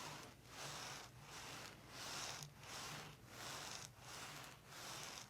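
Hands rubbing over skin and fabric in faint, even back-and-forth strokes, about three every two seconds, as the neck is worked over by hand.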